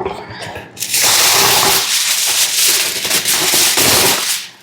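Aluminium foil crinkling and crackling loudly for about three seconds as it is handled and laid down, stopping just before the end.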